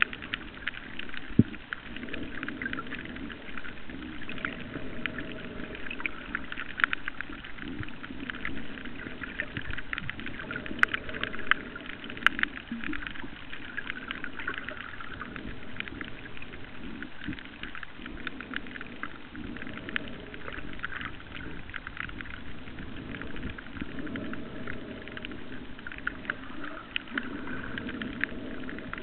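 Underwater ambience: a dense crackle of small clicks over a low rushing noise that swells and fades every four to five seconds.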